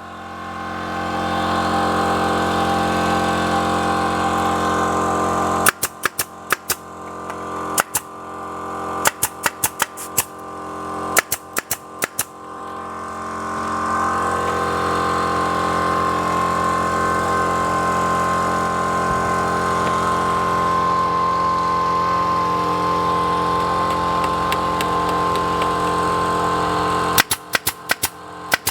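A woodworking machine's motor running with a steady multi-tone whine. It cuts out a few times, with sharp knocks and clicks in the gaps, and winds back up each time.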